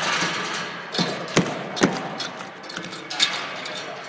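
A dog working at a piece of PVC pipe behind a small fence, knocking it about: four sharp knocks and taps in a little over two seconds.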